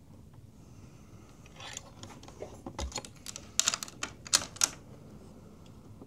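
A quick, irregular run of sharp clicks and rattles starting about two seconds in, loudest a little past the middle, over a low steady background.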